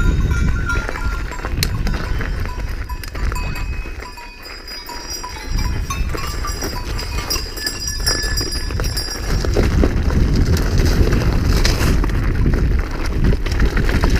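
Bells on grazing livestock ringing irregularly, over a loud low rumble of wind and riding noise on the microphone.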